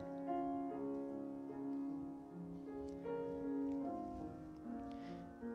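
Soft piano playing slow, held chords, with new notes coming in every second or so.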